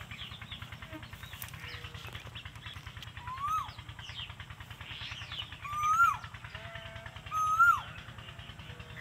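Asian koel calling: a loud whistled call that rises and then drops sharply, given three times about two seconds apart and growing louder, with faint chirping of small birds around it.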